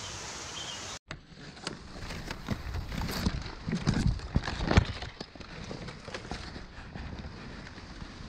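Leaves and twigs being pushed aside and handled close to the microphone, with rustling and irregular crackles and knocks, loudest a few seconds in. In the first second there is only a steady hiss of wind.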